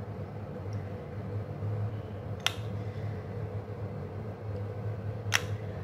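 A metal spoon clinks sharply twice, about three seconds apart, as cake batter is spooned into paper cupcake cases in a muffin tray. A steady low hum runs underneath.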